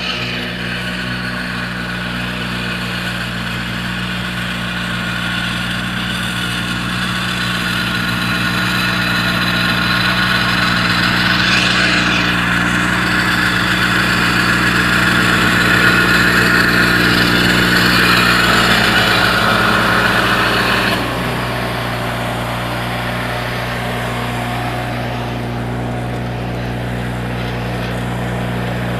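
Riding lawn tractor's engine running steadily while mowing. The mowing noise grows louder through the middle, then drops back suddenly about two-thirds of the way through.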